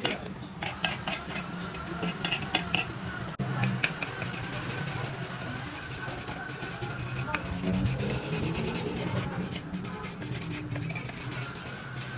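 Metal parts scraping, rubbing and clinking in irregular strokes, over a steady low hum that grows stronger a few seconds in.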